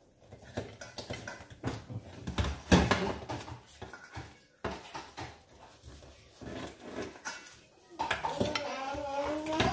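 Raw crab being broken apart by hand: shell pieces crack and clack against a dish in a run of small irregular knocks and clicks. A high voice with a sliding pitch comes in near the end.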